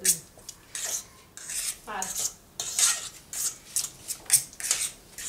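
A spoon scraping and knocking against the sides of a stainless steel pot while banana cake batter of mashed bananas, sugar and oil is stirred, in quick strokes about three a second.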